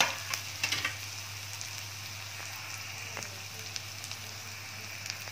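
Chopped onions frying in hot oil in a kadhai, a steady sizzle, with a few light clicks in the first second.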